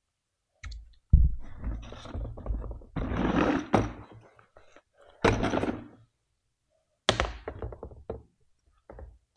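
A run of thunks, knocks and scraping from the geared hub motor of an e-bike as its motor assembly is worked back into the hub shell and its gears are brought into mesh. The loudest thunk comes about a second in, with more clatter about seven seconds in.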